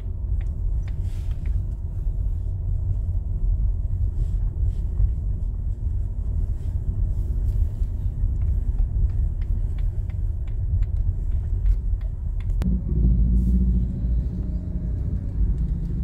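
Inside a moving car's cabin: steady low rumble of the engine and tyres on the road, with a few faint clicks. Near the end a sharp click, then the rumble grows louder for a couple of seconds.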